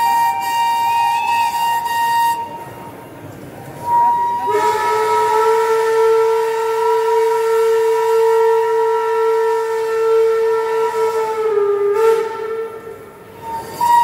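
Steam locomotive whistles blowing. Two whistle tones overlap for the first couple of seconds. After a short pause a long whistle chord of several notes sounds for about seven seconds, dropping slightly in pitch before it stops, and a whistle starts up again near the end.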